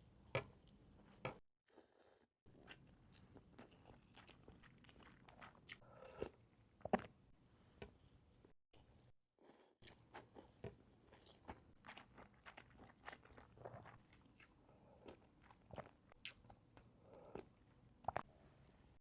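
Close-miked eating sounds of a person eating pho: chewing and biting, with many small wet clicks and smacks. The sound cuts out completely twice for about a second.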